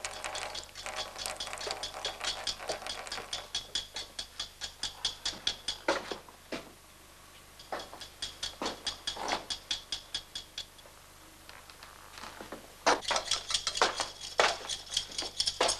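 Kitchen utensils clicking and rattling in quick, even strokes, several a second. It comes in three runs with short pauses, and a few duller knocks fall in the middle.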